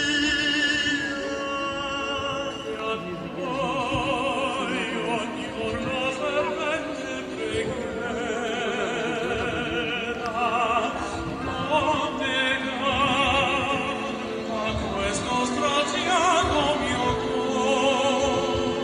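Operatic singing with wide vibrato over orchestral accompaniment.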